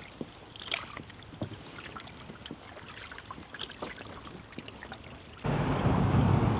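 Water trickling and dripping off canoe paddles, with the small splashes and knocks of paddle strokes. About five seconds in, a loud steady rush of wind on the microphone abruptly takes over.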